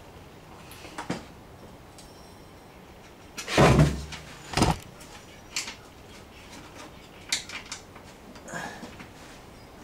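Metal parts of an MTD mower's clutch/idler assembly knocking and clunking as they are handled and fitted back in: a heavy thump with a scrape about three and a half seconds in, another knock a second later, then a few lighter clicks.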